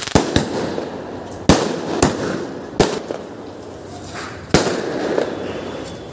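Ground firecrackers going off: about six sharp bangs at uneven intervals, with a noisy crackling hiss between them.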